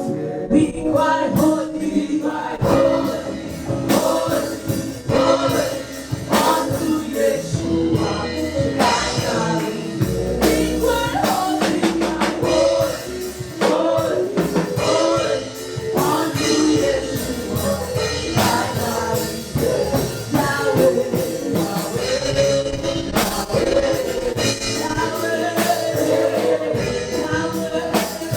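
Gospel praise music: a choir singing over a live band with drum kit and regular drum hits.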